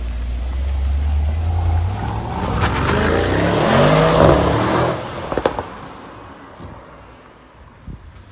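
Mercedes-AMG GT 63 S twin-turbo V8 engine growing louder to a peak about four seconds in, its pitch rising and then falling, before dropping away sharply about a second later. A few sharp cracks follow just after.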